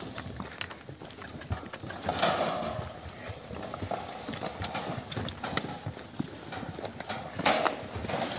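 Hooves of a loaded pack donkey clopping irregularly on a rocky, stony mountain path, mixed with the footsteps of people walking beside it.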